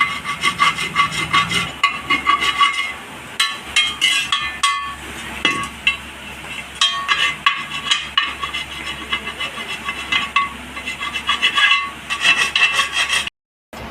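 Rapid runs of scraping strokes on a metal motorcycle wheel rim, the rim ringing under each stroke. The rough tyre-lever marks are being rubbed smooth so they won't damage the new inner tube. The strokes stop in short pauses and cut off briefly near the end.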